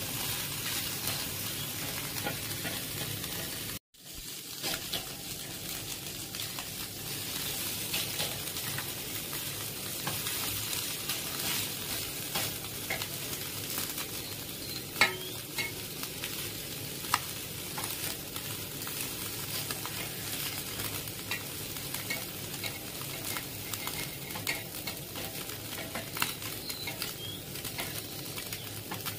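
Small pond fish sizzling as they fry in a blackened shallow pan, stirred and turned with a spatula that scrapes and clicks against the pan. The sound drops out briefly about four seconds in, and a couple of sharper clacks from the spatula stand out midway.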